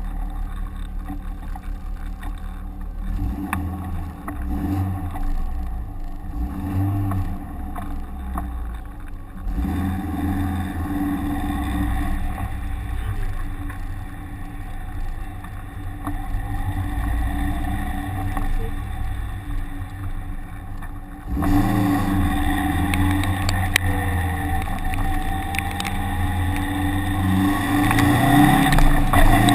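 Vehicle engine running at low revs, with steps in its note about a third and two thirds of the way in, then revving up with rising pitch near the end as it accelerates.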